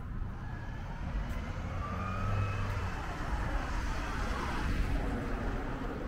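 A small SUV driving past at low speed, its tyre and engine noise building to loudest about four to five seconds in, over a steady low background rumble.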